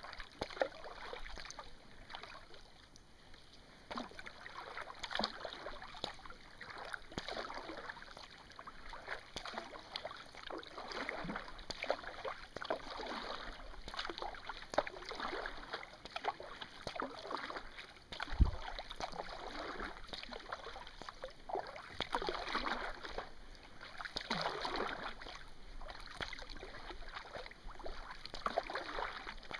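Kayak paddle strokes: the blades dip and pull through calm water in a steady rhythm, with splashing and dripping off the blades. A single low thump about two-thirds of the way through is the loudest sound.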